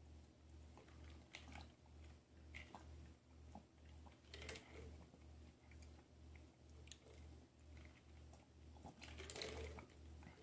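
Faint mouth sounds of a person sipping and swallowing a drink, with a few small clicks, over a low hum that pulses about three times a second.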